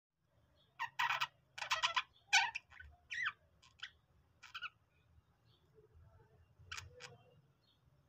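Pet budgerigars chirping: a quick run of short chirps for the first few seconds, a pause, then two more chirps near the end.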